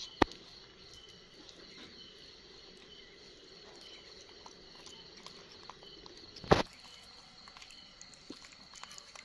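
Steady high-pitched insect chirring in the background, with a sharp knock just after the start and a louder one about six and a half seconds in. Faint small ticks come in between.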